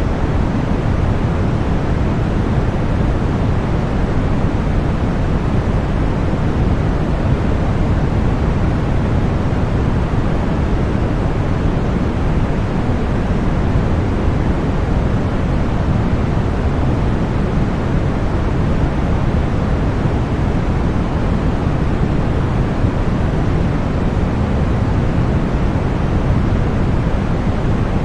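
Continuous synthetic 'deep' white noise: a steady, unchanging rushing hiss, heavier in the low end than in the highs.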